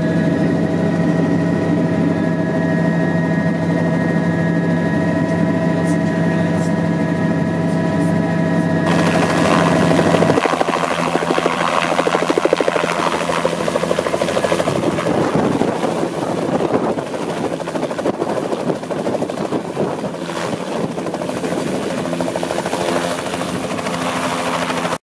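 Turbine helicopter heard from inside the cabin in flight: a steady drone of engine whine and rotor hum. About ten seconds in it changes to a Bell 206 LongRanger heard from outside as it hovers low and settles onto snow, its rotor beating over a rushing downwash, easing somewhat as it sits on its skids.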